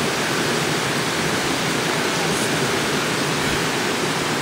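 Steady rushing of stream water, an even hiss-like wash with no breaks.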